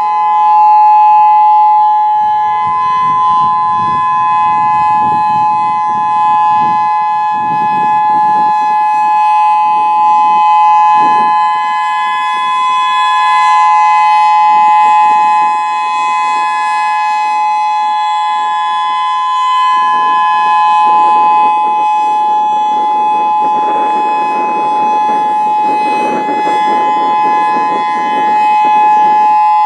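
Federal Signal EOWS 612 electronic outdoor warning siren sounding its Alert signal: a loud, steady tone that holds its pitch without rising or falling, with patches of low rumbling noise beneath it.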